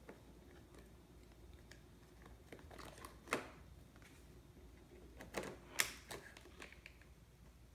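Plastic toy building blocks being handled and fitted together: scattered light clicks, with a few sharper clacks about three, five and six seconds in.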